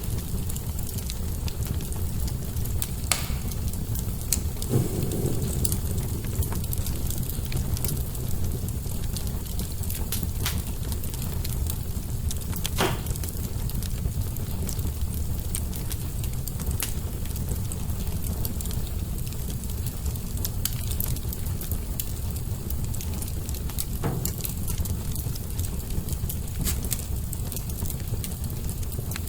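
Wood fire burning in a fireplace: a steady low rumble of the flames with scattered crackles and a few sharper pops from the burning logs.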